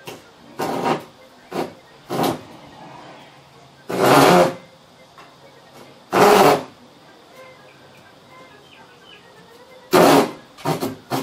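Handsaw cutting into a thin wooden board: separate rasping strokes at an uneven pace, the longest about four and six seconds in, then a quick run of strokes near the end.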